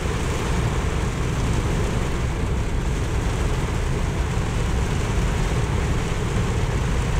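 Steady rumble and rushing noise inside the cab of a Dodge pickup truck driving through deep floodwater.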